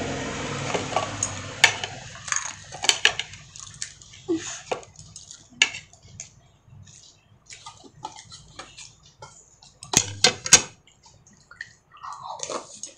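Wooden chopsticks clicking and tapping against stainless-steel bowls while picking up pani puri, scattered short clicks with a louder cluster about ten seconds in, mixed with wet eating sounds of the water-filled puris being eaten.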